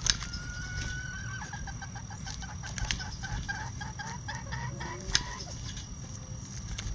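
Bantam chickens calling: one drawn-out, slightly rising note, then a quick run of short clucks, with a few sharp taps as beaks peck at a hanging cabbage.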